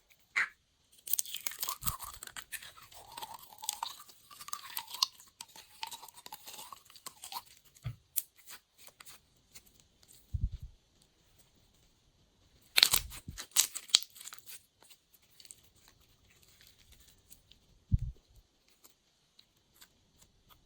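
Glossy slime being squished and kneaded by hand. It gives bursts of wet crackling clicks and pops, with a few soft thumps in between.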